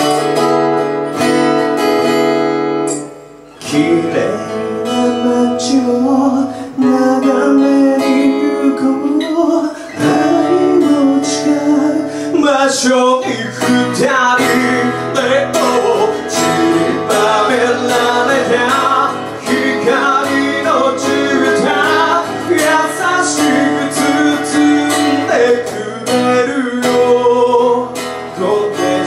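A man singing a song live with strummed acoustic guitar. The music dips almost to nothing about three and a half seconds in, then the voice and guitar come back in.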